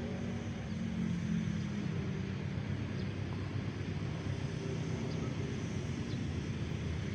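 Diesel locomotive at the head of a passenger train, heard from a distance: its engine runs with a steady low hum as the train starts to depart the station.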